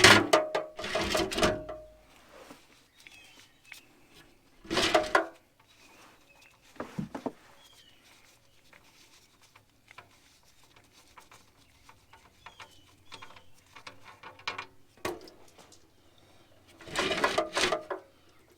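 Metal tools and parts clinking and rattling in a few short clusters while the oil drain plug goes back into a tractor, one clatter ringing briefly. Birds chirp faintly in the background.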